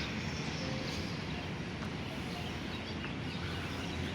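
Steady low rumble of vehicle engines and road noise.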